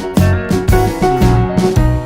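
Instrumental background music with a bass line and a steady beat, about two beats a second.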